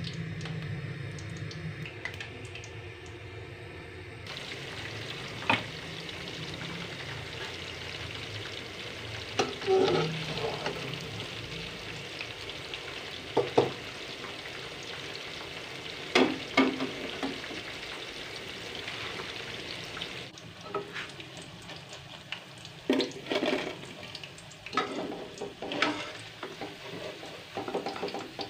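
Pakoras deep-frying in hot oil in a steel kadai, a steady sizzle. Short, sharp metallic knocks come now and then as the slotted spoon strikes the pan while turning the pakoras and lifting them out.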